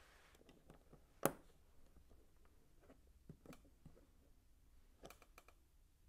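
Hard plastic LEGO pieces and tool clicking and tapping as they are handled and set on the desk: one sharp loud click about a second in, then a few softer clicks around the middle and near the end.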